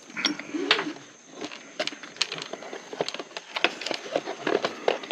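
Irregular clicks, knocks and light metallic clinks of a car seatbelt assembly being handled and fitted, with a short low hum about half a second in.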